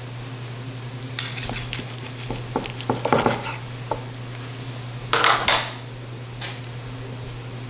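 Chef's knife cutting through a crusted lobster tail onto a wooden board, with metal tongs and blade clinking, in a few short crunchy bursts, the loudest about five seconds in. A steady low hum runs underneath.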